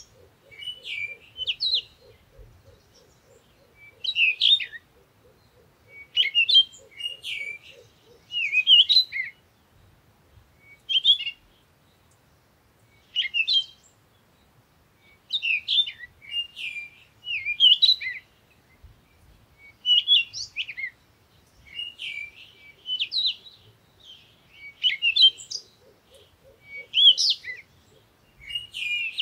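Bird chirping, with short clusters of twittering notes every second or two. A low, rapid pulsing runs under it for the first several seconds and again near the end.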